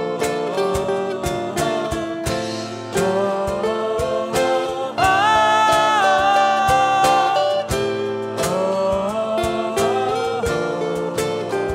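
Live acoustic band music: acoustic guitars and a sung melody over a steady percussion beat, with a voice holding one long high note about five seconds in.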